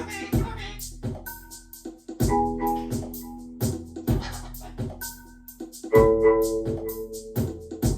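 Music: keyboard chords changing about every two seconds over a steady beat, with a short high note repeating.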